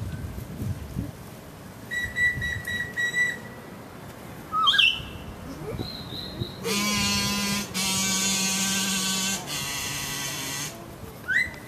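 A held whistled note, then short whistled chirps that slide upward in pitch, the loudest about halfway through. These are followed by three long buzzy held notes, each lower than the last, from a reed-like instrument, and a final upward chirp near the end.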